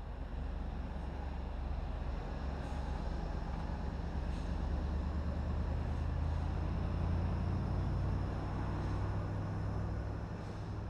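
Heavy diesel engines of a Liebherr LTM 11200-9.1 mobile crane and accompanying heavy trucks driving by, a low steady drone that swells to its loudest about seven seconds in and then eases off.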